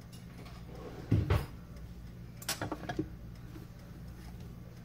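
Salt and pepper containers picked up and handled on a kitchen counter: a couple of low knocks about a second in, then a quick run of small clicks a little later, over a steady low hum.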